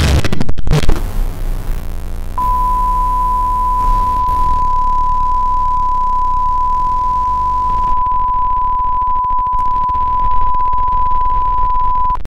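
A short burst of harsh crackling noise, then a steady high-pitched test-tone beep, the reference tone that goes with TV colour bars, sounding over a constant hiss. Both stop abruptly near the end.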